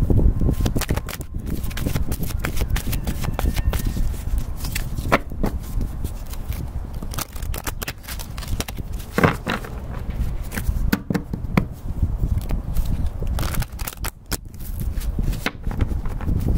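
A deck of oracle cards being shuffled by hand: a run of irregular soft clicks and card slaps, over a steady low rumble.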